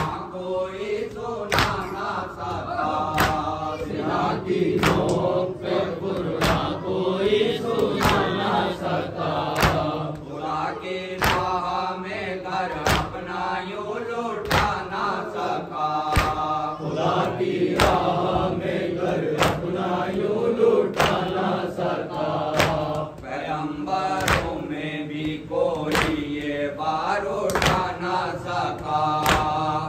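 A noha, an Urdu lament for Imam Hussain, chanted by a lead male reciter and a chorus of men's voices, punctuated by rhythmic chest-beating (matam) slaps about every 0.8 seconds.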